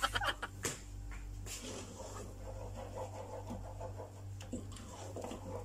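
Wooden spoon stirring and scraping a thick, drying flour-and-milk paste around a metal cooking pot: soft, irregular scraping and rubbing, with a few small knocks at the start.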